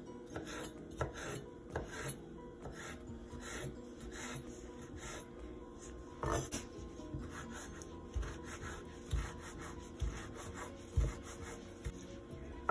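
Chef's knife chopping tomato on a bamboo cutting board: uneven knocks of the blade on the wood, with a few louder strikes in the second half, and the blade scraping across the board.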